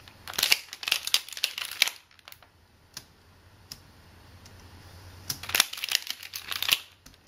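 Plastic tiles of a ShengEn Magic, a Rubik's Magic-style folding puzzle, clacking in quick flurries as they are flipped and folded. The first flurry lasts about two seconds at the start; a second, about a second and a half long, comes near the end as the puzzle is speed-solved. A few single clicks fall between them.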